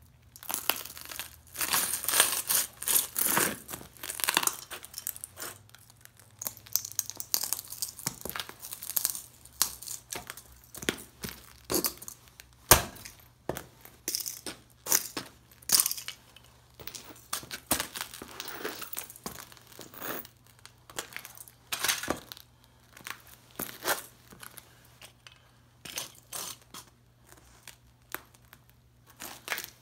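Heavy boots crushing and grinding the broken chassis and circuit board of an old tube radio: irregular crunching, crackling and snapping of small plastic and metal parts, with one sharper crack about thirteen seconds in.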